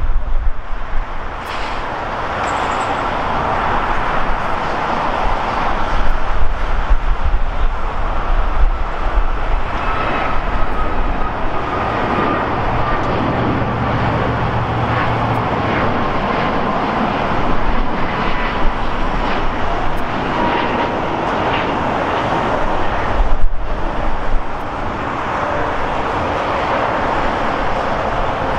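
Air Canada Boeing 737 MAX jet engines at takeoff power as the airliner rolls and climbs away: a loud steady roar with a low rumble and a whine that slowly falls in pitch. There is a momentary break in the sound about three-quarters of the way through.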